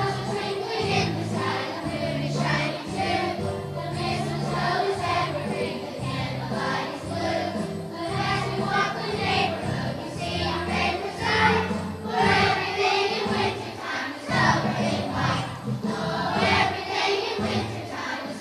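A children's choir singing a holiday song with instrumental accompaniment.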